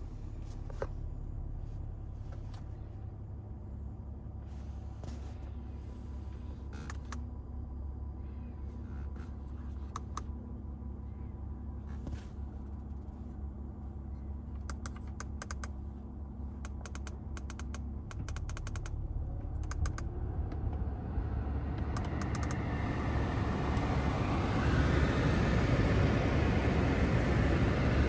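Climate-control push buttons clicking as they are pressed, over a steady low hum. About two-thirds of the way in, a rush of air from the dashboard vents rises and grows louder as the blower fan speeds up.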